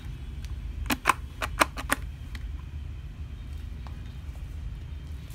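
Plastic hubcap pressed into a plastic ride-on toy car wheel: a quick run of about six sharp clicks about a second in, over a steady low hum.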